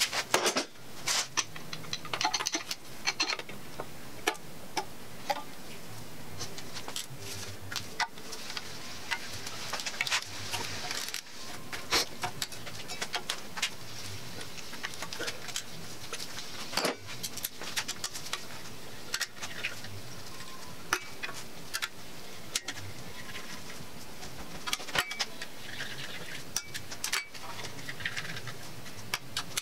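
Scattered metal clinks and taps: small bolts being taken off an engine block's valley cover and dropped into a steel magnetic parts tray.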